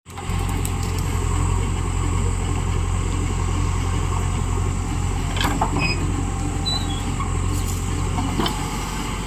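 Heavy diesel engine running steadily, with a few brief clicks and short high chirps around the middle.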